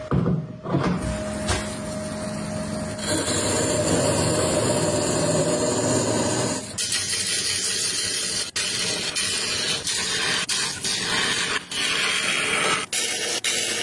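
A motor running with a steady hum, turning to a louder rushing noise about three seconds in, then a hiss broken by short gaps and sharp knocks.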